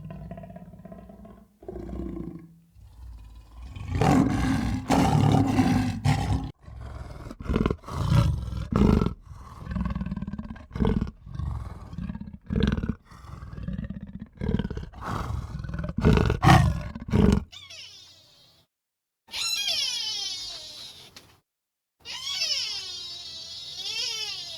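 Bison bellowing in a run of loud, rough roars of irregular length. After a short silence, two peacock calls: high, drawn-out cries that rise and fall in pitch.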